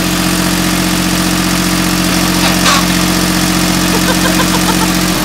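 Iseki 2140 compact tractor's engine idling steadily, just after it has been started.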